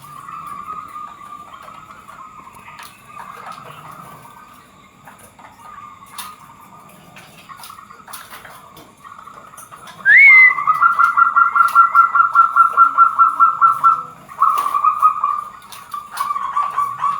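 Zebra doves (perkutut) cooing: soft coos for the first ten seconds, then a loud, rapid run of pulsed coos about ten seconds in that lasts about four seconds, followed by a second, shorter run.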